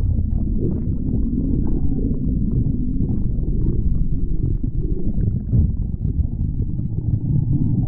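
A person's stomach growling: a continuous low, uneven gurgling rumble.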